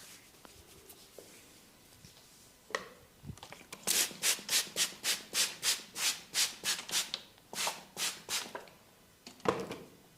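Hands rubbing briskly over skin or hair in rhythmic massage strokes, about three a second for several seconds, then one short knock near the end.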